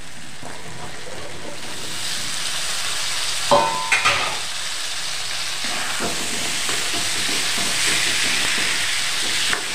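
Diced raw potatoes being added to tomato-onion masala frying in oil in a steel kadhai. The sizzling swells about two seconds in. A few sharp metal clanks against the pan come at about three and a half seconds, then stirring.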